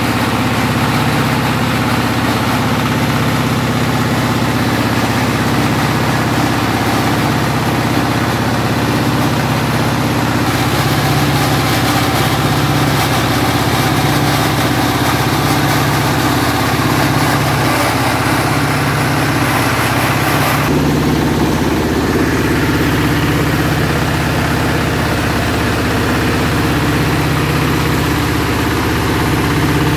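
Nishikawa single-cylinder diesel engine running steadily with a pulsing beat, belt-driving a rice milling machine while grain is being milled. The overall sound changes abruptly twice.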